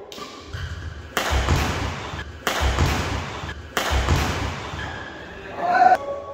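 Badminton rally: three hard racket strikes on the shuttlecock, about a second and a quarter apart, each followed by echo. A player's short shout comes near the end.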